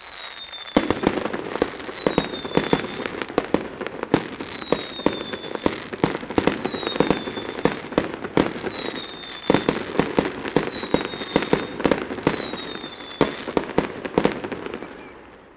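Fireworks going off: a dense, irregular run of sharp bangs over constant crackling, with a short falling whistle coming over and over about every second and a half. It starts just under a second in and dies away near the end.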